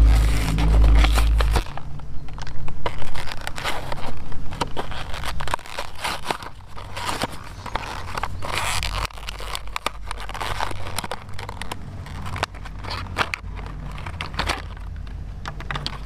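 Cardboard backing card tearing and a clear plastic blister pack crinkling and crackling as a toy truck is pulled out of its packaging by hand. A low rumble sits underneath, loudest in the first second and a half.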